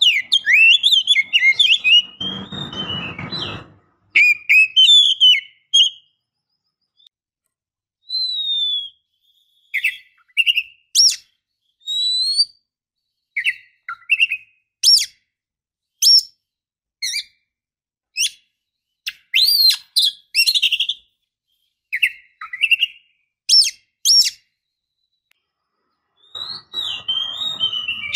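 Oriental magpie-robin (kacer) calls: clear whistled phrases and short sliding and sharp notes, separated by brief silent gaps, with a stretch of harsh noise about two seconds in and again near the end. These are a female's calls, used as a lure to set a male singing.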